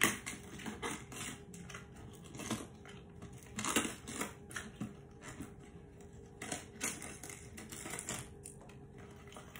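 Leaves being peeled by hand off a sweet cabbage head, giving irregular crisp crunching and snapping as each leaf tears away from the stalk.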